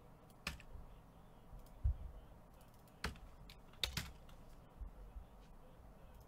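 A few sharp, scattered clicks: one about half a second in and a cluster around three to four seconds in, with soft low thumps between them.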